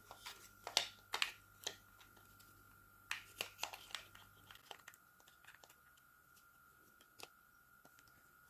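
Scattered small clicks and taps from handling the parts of a Kemei KM 2296 hair clipper during a teardown, many in the first half and only a few later. A faint steady high tone runs underneath.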